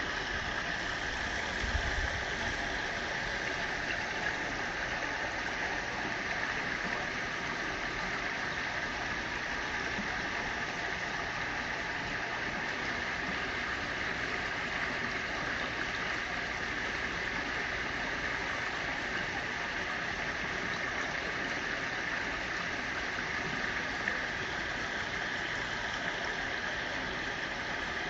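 Steady rushing of flowing creek water, an even hiss that does not change, with a faint low thump about two seconds in.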